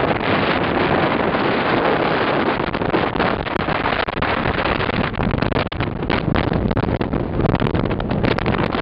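Wind gusting and buffeting the microphone over the steady noise of an Embraer 190 jet airliner landing. From about five seconds in, the buffeting turns choppier.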